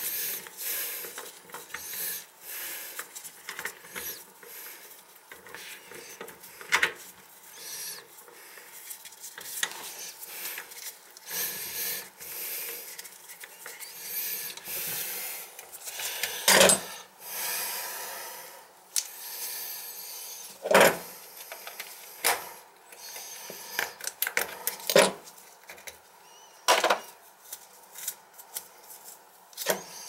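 Hand tools scraping and clicking at the rusted closet-bolt nuts on a toilet's base: irregular scraping and rubbing broken by sharp clicks and knocks, a handful of them much louder.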